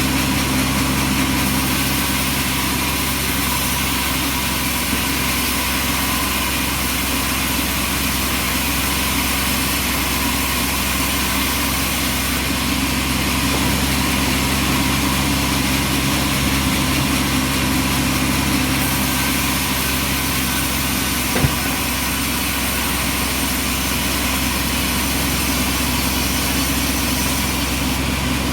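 Bandsaw sawmill running steadily: a motor hum with a band-blade hiss over it, and one sharp click about 21 seconds in.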